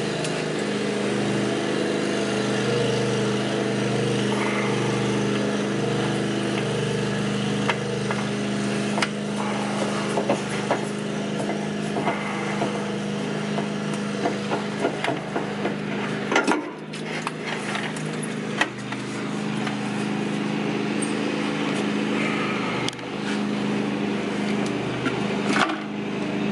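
A motor running steadily with a low, even hum, and scattered clicks and knocks of hands and tools working at a truck's fuel filter and its drain container.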